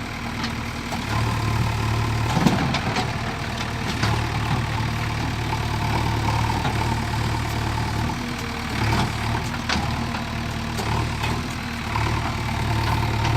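JCB 3DX backhoe loader's diesel engine running, its note growing louder and easing off in stretches as the machine works, with a sharp knock about two and a half seconds in.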